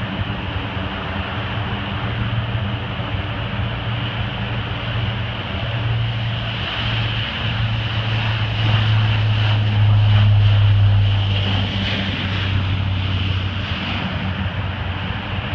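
C-130 Hercules four-engine turboprop running on the runway: a steady propeller drone with a low hum and a high whine, growing louder around the middle as the aircraft passes, then easing off.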